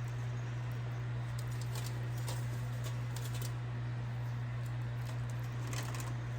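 A steady low electrical-sounding hum, with a few faint light clicks and soft taps from handling a salmon fillet as marinade is poured and spread over it.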